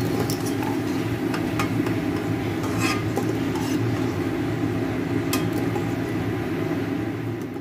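A steel slotted spoon clinking several times against an aluminium kadai as puris are turned and lifted from hot frying oil, over a steady low rumble.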